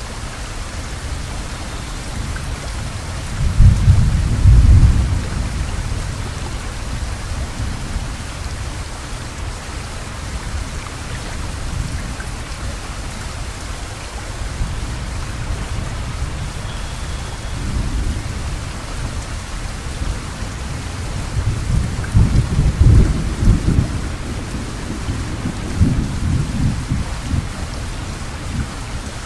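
Heavy rain falling steadily, a constant even hiss. Two spells of loud low rumbling come through it, about four seconds in and again from about twenty-two seconds in.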